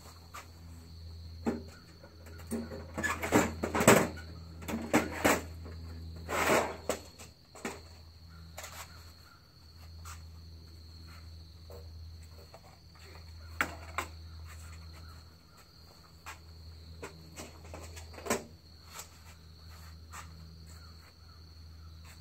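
Handling sounds of a break-top .22 revolver being reloaded with .22 long rifle cartridges: scattered metallic clicks, knocks and rustles, busiest in the first third, over a steady high drone of insects.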